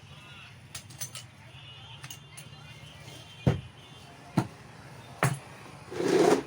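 Three sharp metal knocks about a second apart, preceded by a few light clicks and followed near the end by a short, louder rattling burst: tools and parts being handled while a 5 kg demolition hammer is serviced, over faint background music.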